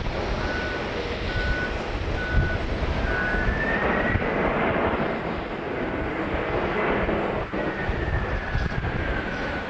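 Boeing 767 jet engines running as the airliner rolls along the runway, under heavy gusty wind noise on the microphone. The engine whine rises in pitch about four seconds in and falls back near the end.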